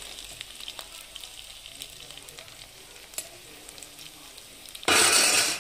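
Food frying in a pan, a faint steady crackle with scattered light clicks. Near the end comes a sudden loud rush of sizzling noise lasting about half a second.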